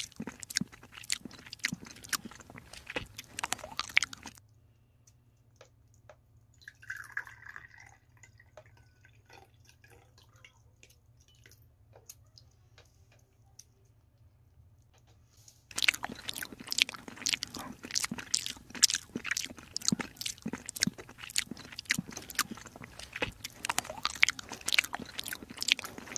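Kitten chewing and smacking wet canned sardine-and-tuna cat food: rapid, wet, close-up mouth clicks. They fall quiet for about ten seconds in the middle, then resume.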